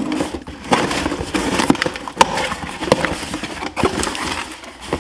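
Knife slitting the packing tape on a cardboard shipping box, then the cardboard flaps being pulled open: a run of crackles, scrapes and rustles.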